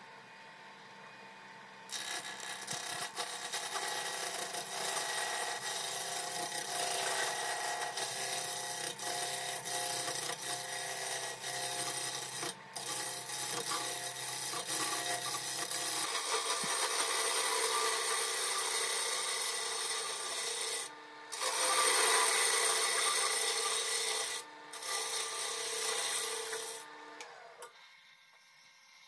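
A turning tool cutting into a spinning segmented wood bowl blank on a lathe: a steady rasping cut while the outside of the bowl is roughed to shape. It starts about two seconds in, breaks off briefly three times, and stops shortly before the end.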